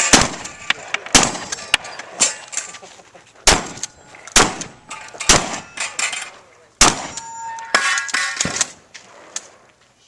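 Shotgun fired in a rapid string of about a dozen shots, irregularly spaced, with steel targets clanging and ringing briefly after some hits.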